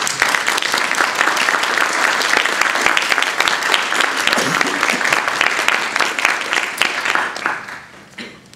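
Audience applauding, many hands clapping densely, then thinning out and fading away near the end.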